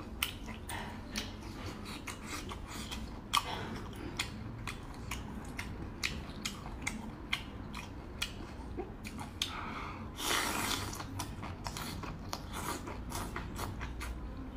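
Close-miked eating sounds: wet chewing with many small mouth clicks as a person eats pieces from a spicy broth. About ten seconds in there is a brief, louder rush of air.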